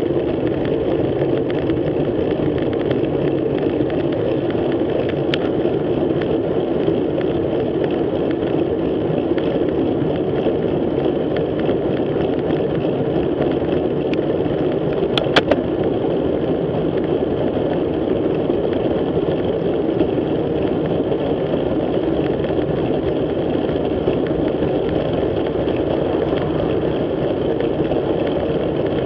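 Steady rushing wind and road noise on a bike-mounted action camera's microphone while riding at about 30 km/h, with a few sharp clicks about 5, 14 and 15 seconds in.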